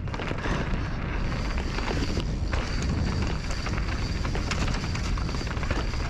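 Mountain bike riding down a rough dirt downhill trail: tyres crunching over rocks and roots with many short rattles and clicks from the bike, over a constant low rumble of wind on the microphone.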